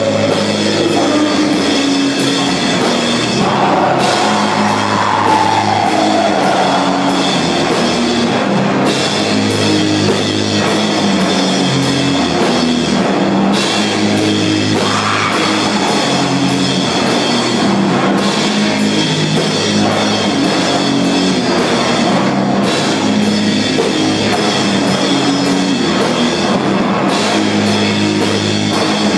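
Live rock band playing loud and without a break: drum kit, electric guitar and a bass line moving between notes.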